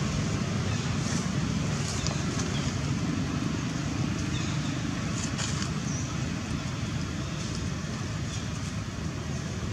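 Steady low outdoor rumble, with faint short high chirps and ticks scattered through it.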